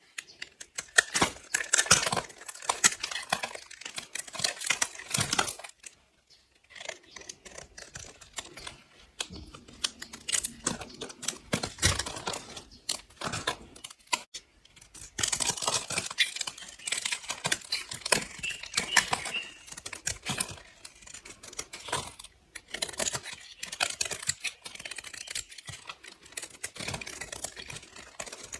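A blade slicing through bars of soap, with crisp, crunchy crackling in runs of quick cuts and short pauses between them.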